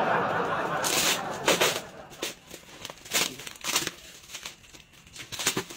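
Thin clear plastic wrapping crinkling and rustling in a string of short, sharp crackles as a parcel is unwrapped by hand.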